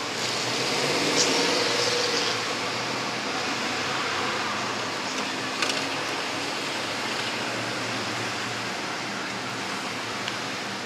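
Steady city street traffic noise: the engines and tyres of cars and vans passing through an intersection, swelling briefly about a second in.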